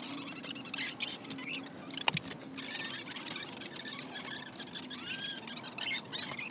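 Hens making short, soft high calls while shovelfuls of compost patter down onto and through a welded-wire ring, with scattered clicks and knocks. A faint steady low hum runs underneath.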